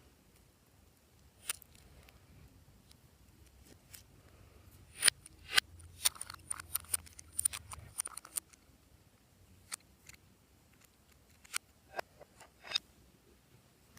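Glossy slime being worked by hand, giving sharp sticky clicks and pops: two loud ones about five seconds in, a quick run of them over the next few seconds, and a few more near the end.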